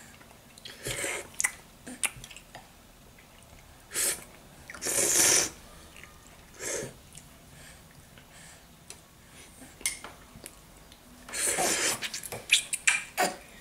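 A baby's short breathy puffs and snorts of air while being spoon-fed, one longer and louder about five seconds in. Near the end come a few light clicks and taps from the feeding spoon.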